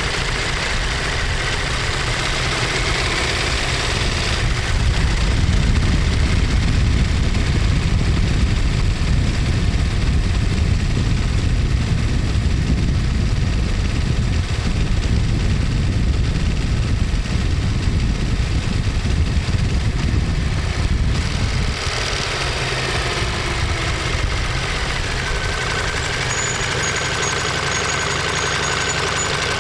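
Ducati Monster 1200S's 1198 cc L-twin engine and exhaust running on the move. It is louder and fuller for a long stretch in the middle, then eases to a steadier, lighter note for the last several seconds.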